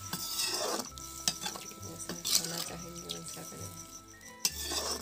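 A perforated metal ladle stirs and scrapes egg curry around a black iron kadhai while the gravy simmers and sizzles. Several sharp clinks of metal on the pan come through.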